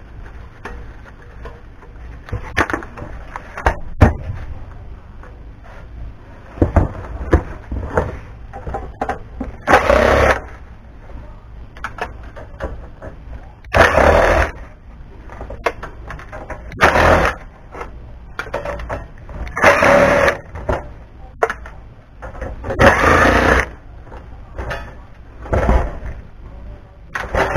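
Cordless drill backing screws out of a power amplifier's sheet-metal case, running in about five short spurts of a second or so each. Between the spurts come clicks and knocks of tools and metal being handled.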